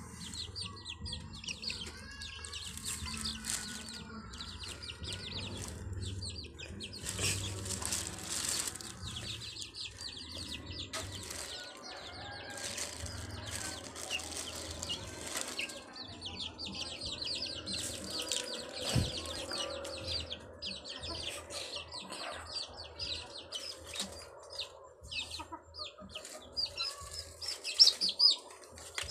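Young chicks peeping rapidly and continuously while feeding on scattered grain, the peeps high and shrill, with a louder burst of sharp peeps near the end.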